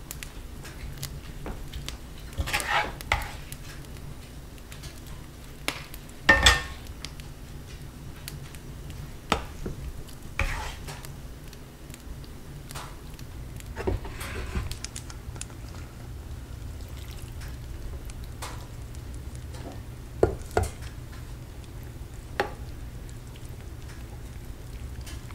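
A utensil stirring and scraping food in a pot, with scattered knocks and clinks against the cookware, the loudest about six seconds in, over a steady low hum.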